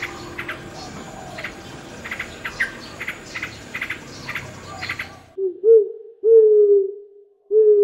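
A background of many short bird or insect chirps over a steady hiss cuts off abruptly about five seconds in. A series of low, pitched animal calls follows: two short calls, then two longer, slightly falling ones, hoot-like or howl-like.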